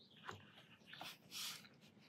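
Faint scratching of a Sakura Micron fine-liner pen drawing short strokes on sketchbook paper, about four strokes, the longest about one and a half seconds in.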